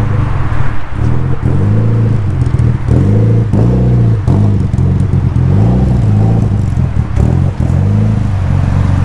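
Loud car engine running at low revs, its pitch rising and falling gently about once a second as the throttle is eased on and off.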